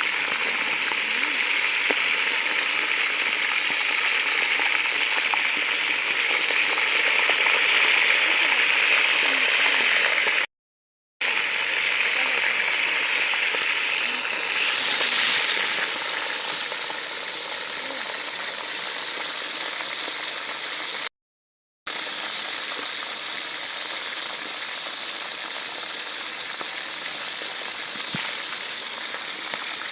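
Food deep-frying in hot oil, a steady sizzle, swelling briefly about halfway through. The sound breaks off completely twice for under a second.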